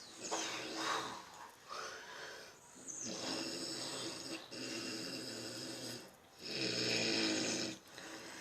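Snoring in sleep: a run of about five snoring breaths in a row, each a second or so long with short pauses between them, the loudest one near the end.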